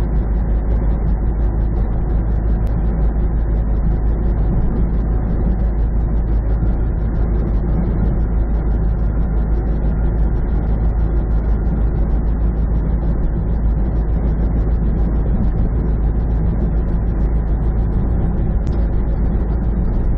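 Semi truck's diesel engine and tyres droning steadily at highway speed, heard from inside the cab.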